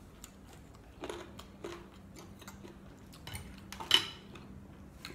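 Metal spoon and fork clinking and scraping on a plate a few times, the sharpest clink about four seconds in.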